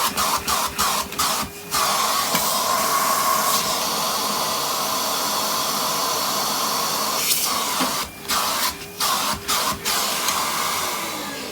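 Vacuum cleaner running with a steady rushing hiss and whine, the sound dipping sharply many times in the first two seconds and again after about eight seconds; near the end the motor is switched off and winds down with a falling whine.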